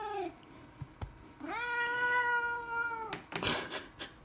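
Domestic cat meowing: the tail of one meow right at the start, then one long, level meow beginning about one and a half seconds in.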